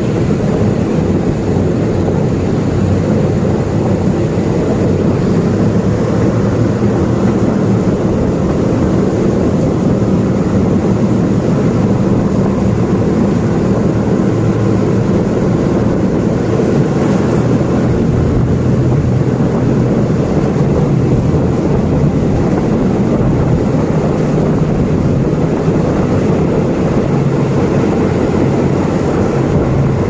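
Running noise of a moving diesel passenger train heard from an open window: a steady engine drone over rumble and rushing air. The engine note drops a little about halfway through.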